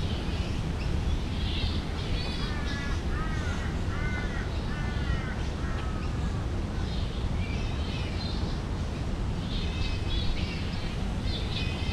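Birds calling in runs of short, repeated chirping notes, starting about two seconds in and again near the end, over a steady low rumble.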